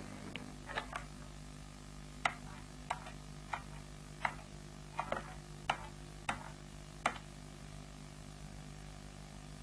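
Keys of a push-button desk telephone being pressed to dial a number: about a dozen short clicks at uneven intervals over some seven seconds, over a steady low hum.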